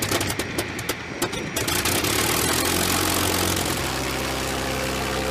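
P-51 Mustang's Merlin V-12 piston engine starting up: a run of irregular pops as it catches, then running steadily.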